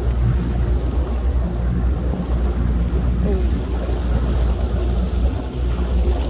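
Many boat engines droning at a distance across open water, over a steady low rumble of wind on the microphone and waves lapping.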